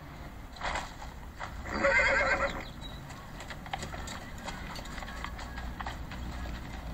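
Horses: one whinnies for about a second, about two seconds in, then hooves clop unevenly as the horses walk off.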